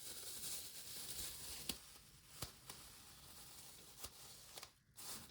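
Faint handling sounds of a stretchy bowl cover being fitted over a bowl: soft rustling for the first second and a half, then a few light, separate clicks.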